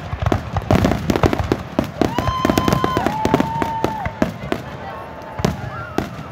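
Fireworks going off: a dense run of rapid crackles and bangs that thins out after about four seconds. Two long, high-pitched held tones sound in the middle.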